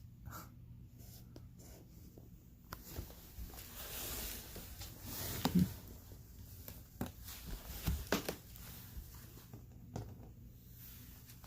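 Cat chewing and tearing at a small bird: scattered crunches and clicks, with a stretch of rustling and scraping in the middle.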